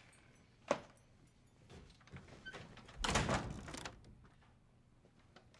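A door being worked: a sharp click just under a second in, then about a second of noise as the door moves, starting about three seconds in.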